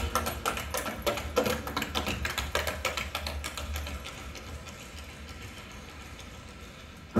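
A quiet passage of percussion music over hi-fi loudspeakers: a fast run of quick, dry tapping strokes that fades away gradually.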